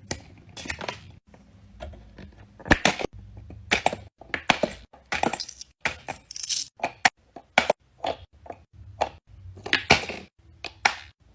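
About a dozen sharp clicks, cracks and knocks at irregular intervals, with a faint low hum beneath.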